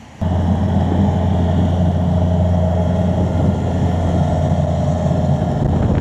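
Skid-steer loader's engine running steadily close by, a constant low hum with overtones that comes in abruptly just after the start.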